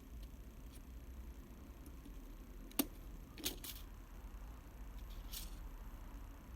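Small mechanical clicks from handling a Nikon FM2 film camera under repair: one sharp click a little under three seconds in, two softer clicks just after it, then a short scrape.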